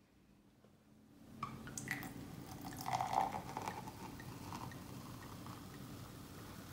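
Rosé champagne poured from the bottle into a flute glass. Splashing liquid begins about a second and a half in and is loudest a little before the middle, then settles into a steady fizzing hiss.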